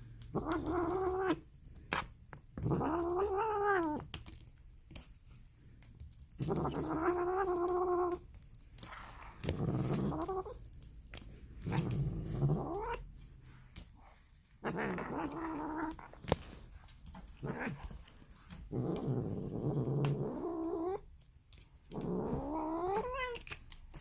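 Domestic cat making weird, drawn-out yowling calls, about eight of them, each a second or two long with pauses between, several rising in pitch toward the end.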